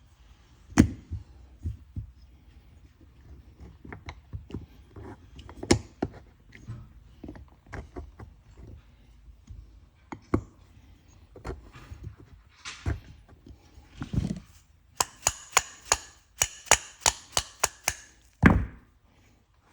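Metal brake caliper parts knocking and clicking as pads and pins are fitted back into a motorcycle front caliper, with a quick run of about a dozen sharp, ringing metallic clicks near the end and a heavier knock just after.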